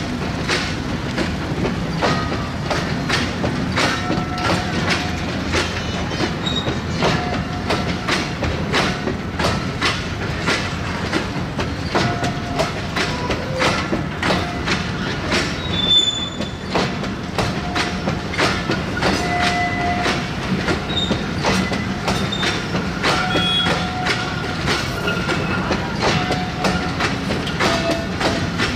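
Bogie oil tank wagons of a freight train rolling slowly past, their wheels clicking steadily over the rail joints, with short, scattered high wheel squeals.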